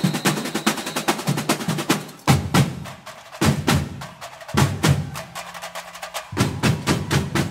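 Percussion-led music with a fast, even beat of drum and wood-block strokes. The low drums drop out for short moments in the middle.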